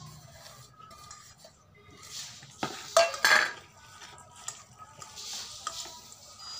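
Stainless-steel bowls scraping and clinking as ingredients are scraped from one bowl into another, with a couple of loud metallic clanks about three seconds in as the small bowl is put down. Then soft, squishy hand-mixing of mashed jackfruit in a steel bowl.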